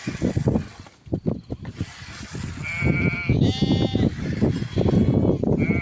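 Goats and sheep in a milking pen bleating, about three calls, the middle one long and wavering, over the busy low shuffling and clatter of the flock.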